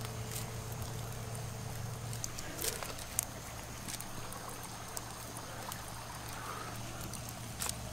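Open wood-and-charcoal fire burning under a wire grill: a steady hiss with a few sharp crackles and clicks as duck eggs are set on the grill.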